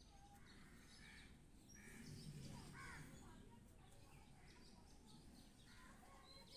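Near silence, with faint, scattered bird calls in the background.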